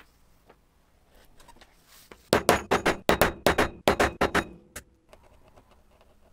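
Metal hammer striking a leather hole punch held on a leather strap: a quick run of about a dozen sharp blows within two seconds, driving the punch through the leather.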